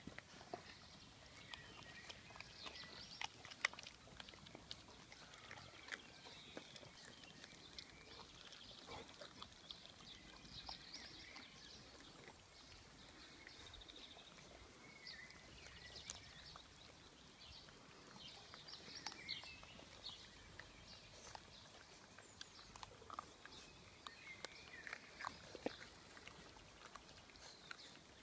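Labrador puppies gnawing and chewing raw whole quails, faint irregular crunching and clicking of small bones, with a sharper crunch a few seconds in.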